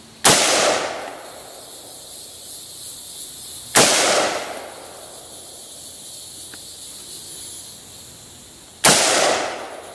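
Colt LE6940 AR-15 rifle in .223 firing three single shots, a few seconds apart, each followed by about a second of echo.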